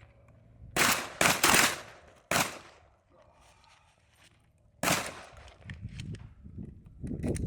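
Pump and semi-automatic shotguns fired by several shooters on a firing line, shots irregularly spaced. Three come close together about a second in, one more about a second later, and another near five seconds in.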